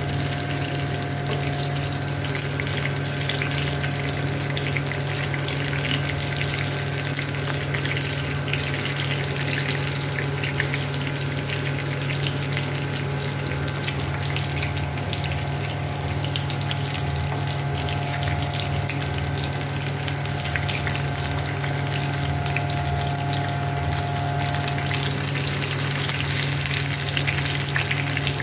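Karimeen (pearl spot) fish shallow-frying in oil in a pan on a low flame: a steady sizzle full of small crackles, over a constant low hum.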